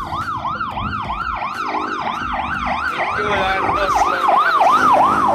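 Emergency-vehicle siren in a fast yelp, its pitch sweeping up and down about three times a second.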